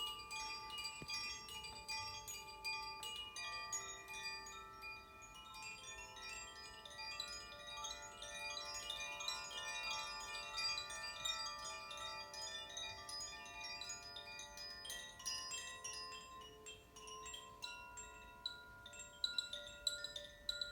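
Makino-style chimes struck one after another in a free-flowing solo: many clear ringing tones overlap and sustain. The strikes grow quicker and sharper near the end.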